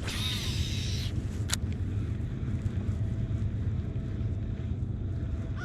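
Boat motor running with a steady low rumble. A hissing burst in the first second and a single sharp click about a second and a half in.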